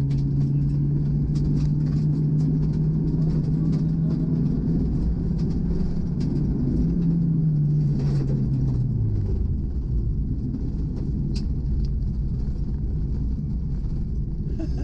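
Rally car's engine pulling hard along a gravel stage, heard from inside the cabin, with scattered ticks of gravel against the car. About nine seconds in the engine note drops as the car lifts off and slows, and a sharp single click comes shortly after.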